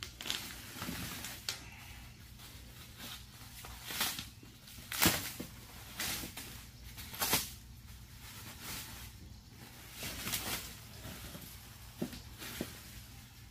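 Cardboard and plastic packaging rustling and scraping as boxed metal side steps are unpacked and handled, with several short knocks, the sharpest about five seconds in.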